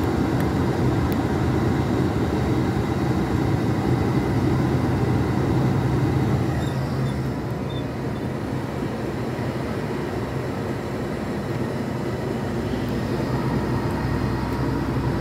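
Heavy lorry heard from inside the cab while driving, with a steady engine drone under the tyre and road noise of a wet, slushy motorway.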